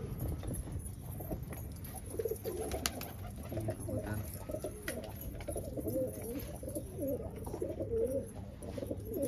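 A flock of domestic pigeons cooing, many overlapping calls at once.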